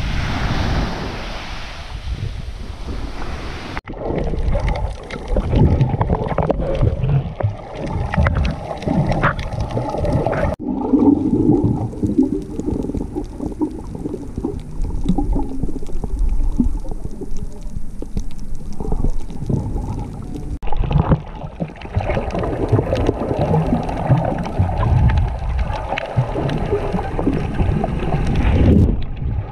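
About four seconds of surf and wind hiss at the shore, then the muffled sound of a camera underwater: low churning and gurgling water noise. It changes abruptly three times, at each cut between clips.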